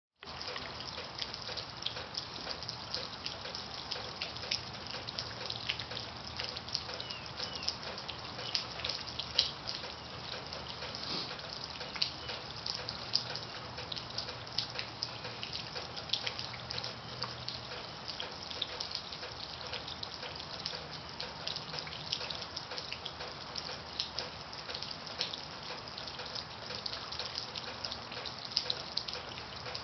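Water dripping and trickling steadily, with many small irregular drips.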